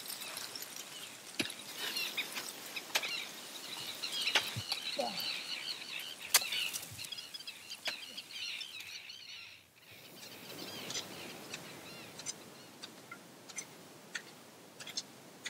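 Sharp, irregular knocks of ice axes and crampons biting into an ice wall, with birds chirping in the background. After about ten seconds the knocks and chirps thin out to a faint hiss with a few light ticks.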